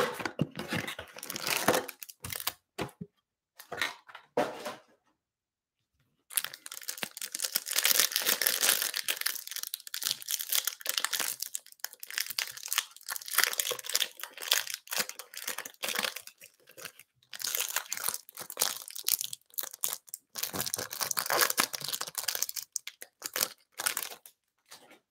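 A cardboard Mosaic football-card hanger box being torn open, then the crinkly plastic wrapper around the stack of cards inside being worked off and crumpled, with a brief silent gap a few seconds in.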